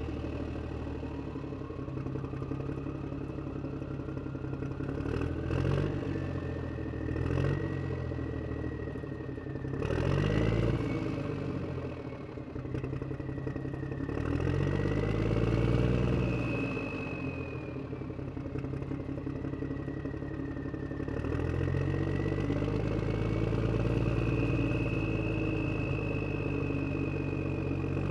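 An engine running and revving up and down several times, with a whine that glides up and then wavers above it.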